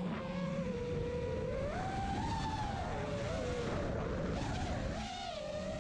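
FPV quadcopter's brushless motors whining, the pitch rising and falling with the throttle, over wind rumble on the onboard GoPro's microphone.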